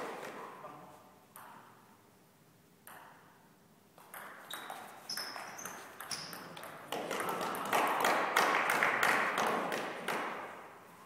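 Table tennis ball clicking off paddles and table during a doubles rally, a few single strokes and then a quick run of strokes. From about seven seconds in comes a louder, denser stretch of noise with voices, fading near the end.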